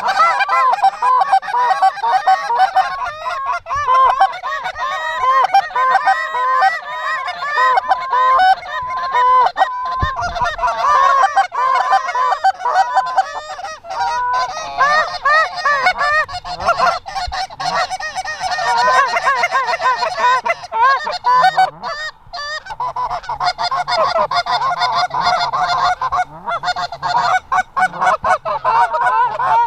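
Many Canada geese honking at once, short overlapping honks in a continuous loud chorus, thinning briefly about two-thirds of the way through.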